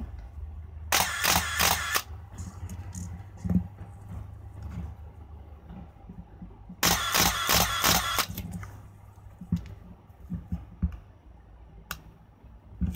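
Canon EOS-1 film SLR firing in continuous drive: two bursts of rapid shutter-and-mirror clicks with the built-in motor cycling, each lasting about a second, one about a second in and the other about seven seconds in. Softer handling clicks fall between the bursts.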